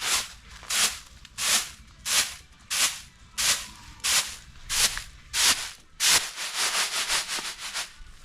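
Rhythmic rasping strokes of something rough being drawn back and forth, about one every two-thirds of a second, turning to quick short strokes for the last two seconds.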